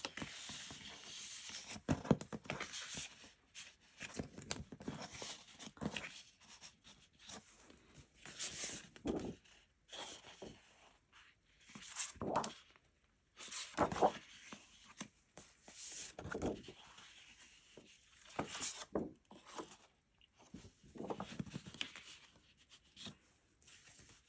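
Sheets of 12-by-12-inch card-weight scrapbook paper rustling and swishing as they are lifted, flipped over and laid down on a tabletop. The swishes come irregularly, each lasting about a second, with quiet gaps between them.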